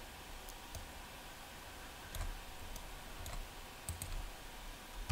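Faint, irregular clicks of a computer mouse being operated at a desk, some coming in quick pairs.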